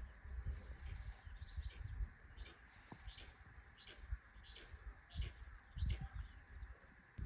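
A bird calling a series of short, high chirps, about two a second, over an uneven low rumble.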